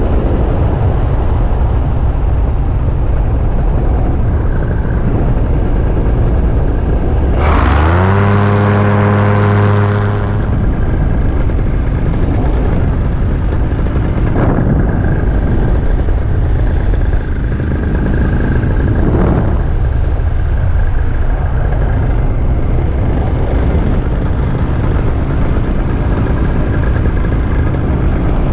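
Powered-paraglider (paramotor) engine and propeller running steadily. About seven seconds in the throttle is opened: the engine note rises sharply, holds high for a couple of seconds, then drops back. Two briefer rises follow later.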